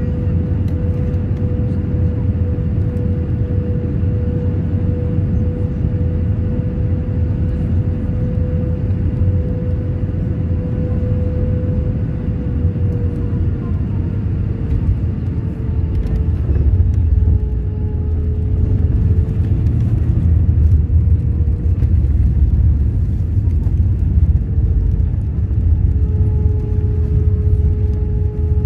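Jet airliner cabin noise on landing: a steady low rumble of engines and airflow with a steady whine that dips slightly in pitch about halfway. The rumble grows louder a little past halfway as the plane reaches the runway.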